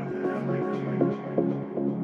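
Background electronic dance music with a quick steady beat over a held synth chord, with a brief hissing swell near the start.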